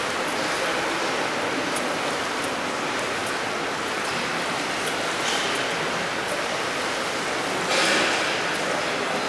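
Indoor swimming pool ambience: a steady rushing of water, with a brief louder swell of splashing water near the end.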